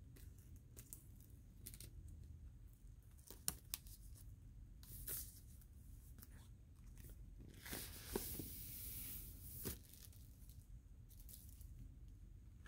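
Plastic shrink wrap being torn open and peeled off a vinyl LP jacket: faint scattered crackles and a sharp click about three and a half seconds in, then a longer rip with rustling from about eight to ten seconds in.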